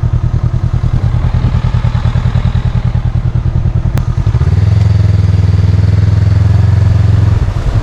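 Honda CB500X's parallel-twin engine running, with an uneven, pulsing beat for the first half, then a steadier, louder engine note from about halfway through.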